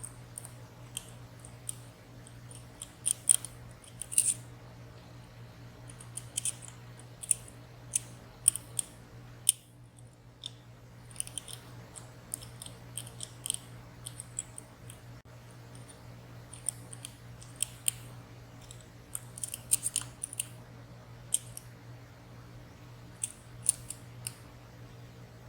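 Small, irregular metallic clicks and ticks of a lock pick and tension tool working the sliders and pins inside a WSW W10 high-security padlock, with a steady low hum underneath.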